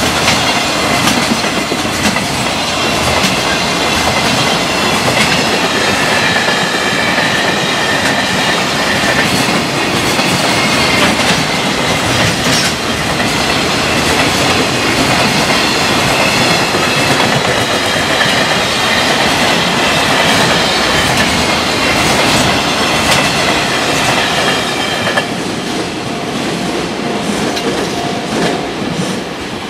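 Freight container train passing at speed, its wagon wheels clattering over the rail joints in a steady clickety-clack with a high ringing whine from the wheels. Near the end the last wagon clears and the noise falls away.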